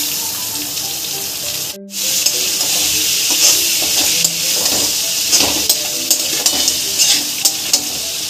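Vegetables sizzling in hot ghee in a steel kadai, stirred with a steel spatula that scrapes and clicks against the pan. The sizzle breaks off briefly about two seconds in.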